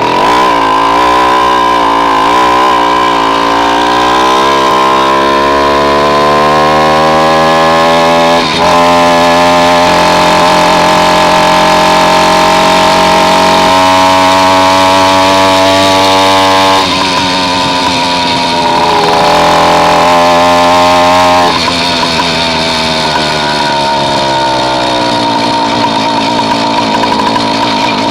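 Small engine of a motorized bicycle kit running hard, its pitch climbing and falling as it revs up and eases off. It dips briefly about eight seconds in, drops off twice later, and ends on a steadier note.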